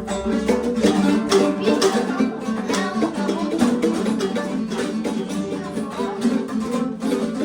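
Background music led by a plucked acoustic guitar or ukulele, with a steady run of picked notes.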